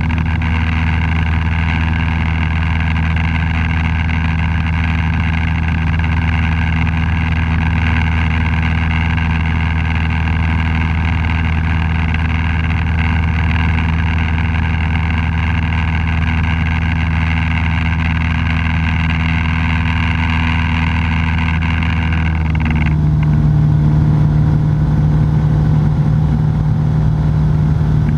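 Cessna 172's piston engine and propeller droning steadily inside the cockpit during the climb. About 23 seconds in, the drone abruptly changes tone and gets slightly louder as the aircraft levels off.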